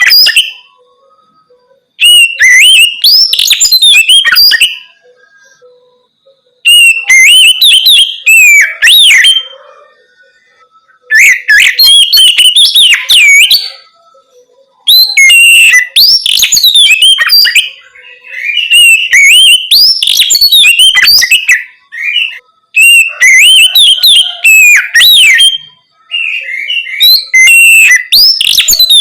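Oriental magpie-robin (kacer) singing its open 'ngeplong' song: loud, clear whistled phrases with quick up-and-down glides, in bursts of two to three seconds with short pauses between, about seven phrases.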